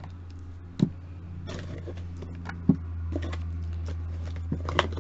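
Plastic roll-on deodorant bottles being handled and set down: a few sharp knocks, about a second in, near the middle and a small cluster near the end, over a steady low hum.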